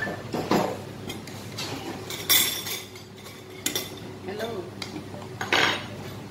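Metal ladle and spoon clinking against a large aluminium pot and a ceramic plate while noodle soup is served, with several separate sharp clinks.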